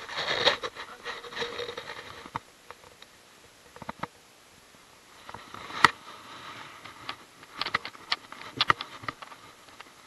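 Hands handling a freshly caught largemouth bass and working the hook out of its mouth: rustling with scattered sharp clicks and taps, the sharpest about six seconds in and a quick cluster of them shortly before the end.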